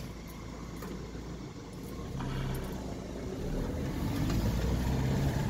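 Car engine and road noise heard from inside the cabin: a steady low rumble that grows louder from about two seconds in, with a low engine hum coming and going.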